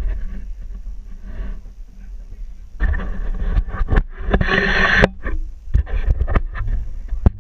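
Jeep engine running low while crawling over rocks, with scrapes and knocks throughout and a louder rushing, scraping stretch in the middle, ending with one sharp knock.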